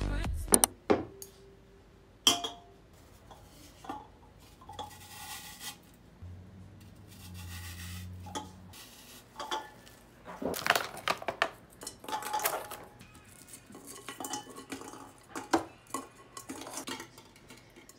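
Scattered clinks and knocks of a glass bowl and vase on a wooden tray as artificial stems and Christmas ball ornaments are arranged in the bowl, with a few sharper knocks and a busier run of clinks past the middle.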